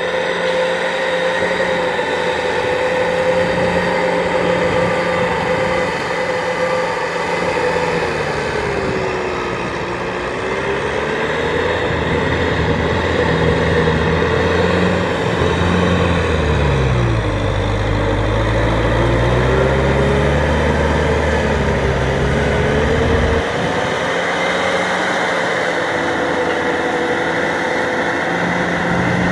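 Kubota M6040SU tractor's four-cylinder diesel engine running steadily under load while driving a rotary tiller through flooded mud. Its pitch dips and recovers twice, about a third of the way in and again past the middle, and it is deepest and heaviest through the middle stretch.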